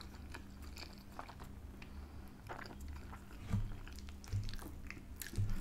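Close-miked chewing of soft food, chips in gravy with melted mozzarella, with small wet mouth clicks and a few soft low knocks in the second half.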